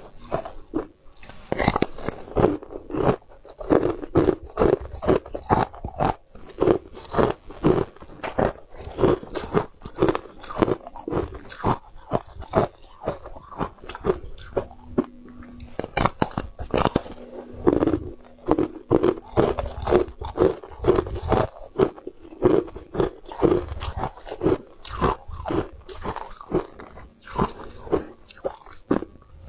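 Hard ice being bitten and chewed: a dense, irregular run of sharp cracks and crunches as pieces are bitten off a moulded block of ice and ground between the teeth.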